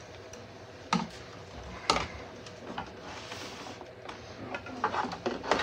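Scattered clicks and knocks as red PLA filament and its plastic spool are handled at a 3D printer's filament intake, with two sharper knocks about one and two seconds in and a run of lighter clicks near the end.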